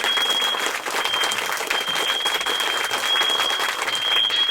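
Fire alarm sounding one steady, high-pitched continuous tone, over a dense crackling hiss.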